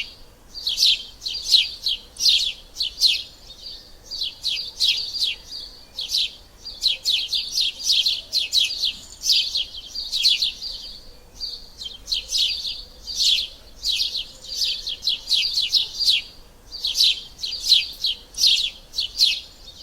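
House sparrows chirping in quick runs of short, repeated chirps, with only brief pauses between runs.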